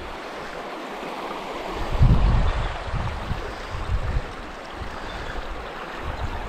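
Waterfall rushing as a steady noise of falling water. Wind buffets the microphone with low rumbles about two seconds in and again around three to four seconds in.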